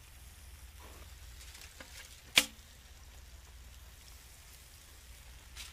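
Chicken pieces sizzling faintly on a barbecue grill, with a single sharp clack about two and a half seconds in.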